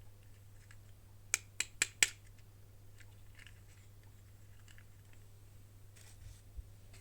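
Four quick sharp clicks about a quarter of a second apart, then faint rustling and handling noises, typical of plastic toy packaging being opened and handled. A low steady hum runs underneath.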